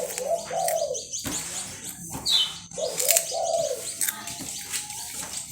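A dove cooing: a short phrase of several notes, repeated twice about three seconds apart. Small birds chirp high above it, with one clear downward chirp a little past two seconds.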